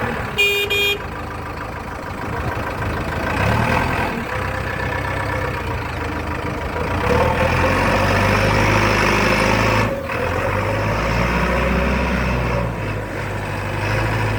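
Diesel engine of a JCB 3DX backhoe loader running steadily, a little louder for a few seconds in the middle. Two short beeps sound just after the start.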